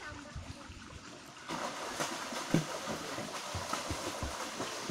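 Shallow pool water splashing as a child sits down and kicks her legs in it: a noisy rush of splashing that starts about a second and a half in, with a few low thuds.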